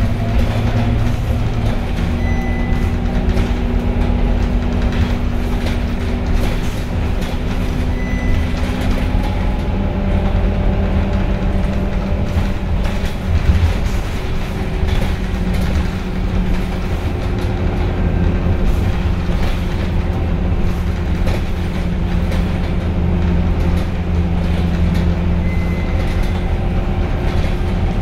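Scania K230UB city bus heard from inside the cabin, driving at low speed: its rear-mounted diesel engine and ZF Ecomat 6HP502C automatic gearbox run with a steady low drone and whining tones whose pitch changes about ten seconds in. A brief high beep sounds now and then.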